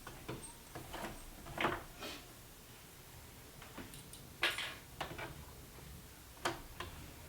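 A few light, scattered clicks and knocks with some rustling, unevenly spaced, from the mask and sewing machine being handled; the machine is not running.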